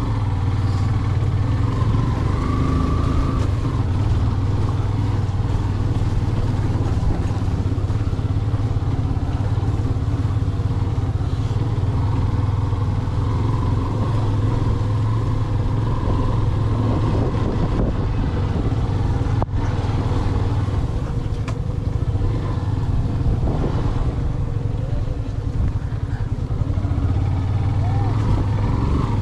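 Motorcycle engine running steadily at an even speed while riding.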